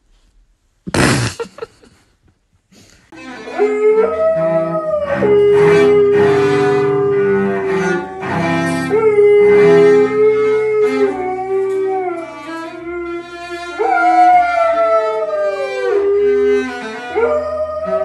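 A cello playing long bowed notes while a dog howls along with it, the howls gliding up and down over the held notes. About a second in, a brief loud burst of noise.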